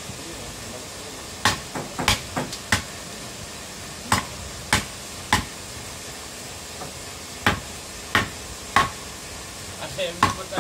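A wooden board repeatedly striking a heat-treated steel knife blade laid across a wooden post: three sets of three sharp knocks, each blow followed by a short metallic ring, as a test of the blade's heat treatment.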